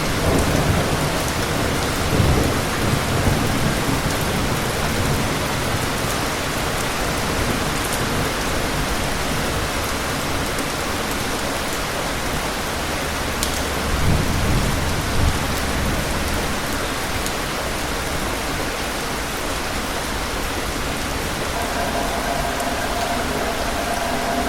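Steady heavy rain with distant thunder rumbling twice, once over the first few seconds and again about halfway through.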